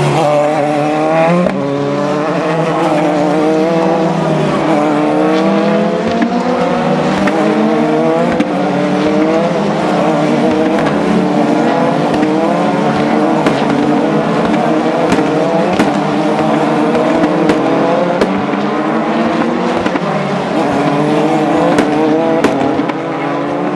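Several open-wheel single-seater race car engines at high revs, their notes climbing and dropping again and again as the cars drive past one after another, overlapping.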